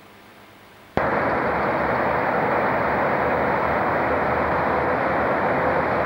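Locomotive approaching on the line, its engine running steadily; the loud noise starts abruptly about a second in, with a faint steady whine under it.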